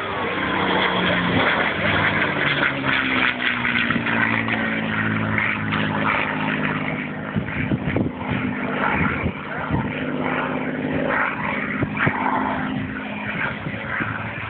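Messerschmitt Bf 109 fighter flying past, its piston engine giving a steady propeller drone whose pitch falls slightly in the first few seconds as it passes.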